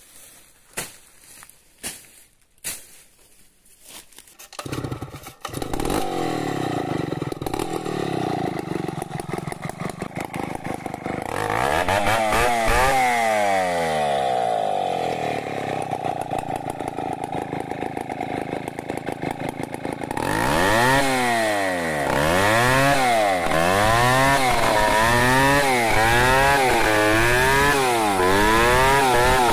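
Stihl 070 two-stroke chainsaw. After a few sharp clicks it comes in about five seconds in and runs steadily, then climbs to a higher pitch. In the last third its pitch rises and falls about every second and a half as the bar is worked lengthwise through a log.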